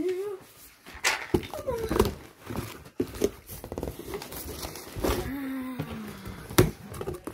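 Crumpled packing paper rustling and crinkling inside a cardboard box, with a few sharp knocks.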